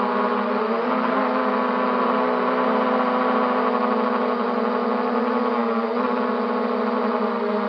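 MJX Bugs 3 quadcopter's brushless motors and propellers whining steadily in flight, the pitch shifting slightly about a second in and again near six seconds as the throttle changes.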